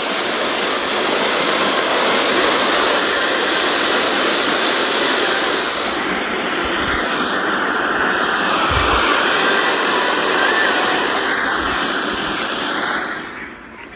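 Loud, steady radio static: the hiss of an untuned or signal-less FM/weather-radio channel on a software-defined radio receiver. It cuts off shortly before the end, when a broadcast voice returns.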